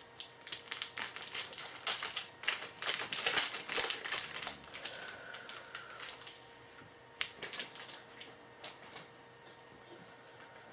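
Trading-card pack wrapper being torn open and crinkled: a dense run of quick crackles and clicks for about six seconds, then a few separate clicks as the cards are handled.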